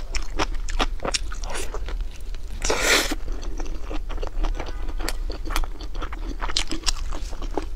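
Close-miked eating of a crisp, sauce-glazed chicken drumstick: wet chewing with many sharp crunchy clicks, and one longer, louder crunch about three seconds in as a bite is taken.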